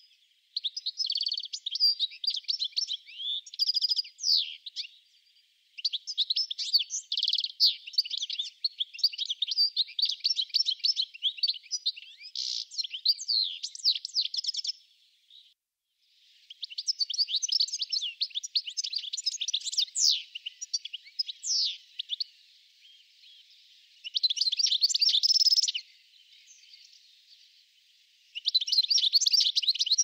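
European goldfinch song: fast, liquid twittering phrases of several seconds each, separated by short pauses.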